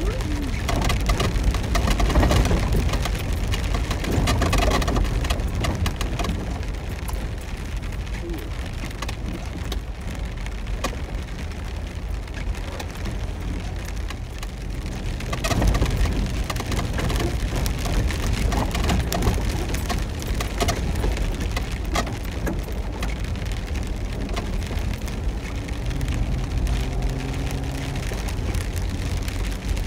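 Heavy rain on a moving vehicle, heard from inside the cab, over the low rumble of the engine and tyres on a wet dirt road. The noise swells louder about two seconds in and again about halfway through.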